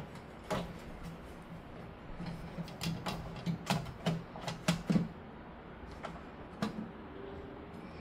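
Sharp clicks and knocks of hard PC case and mount parts being handled and fitted together, about ten in all, most of them bunched between two and five seconds in.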